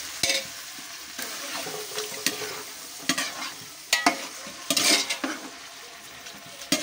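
Masala-coated chicken sizzling as it fries in hot oil in a large aluminium pot. A metal spoon stirs it, with short scrapes and clicks against the pot about once a second.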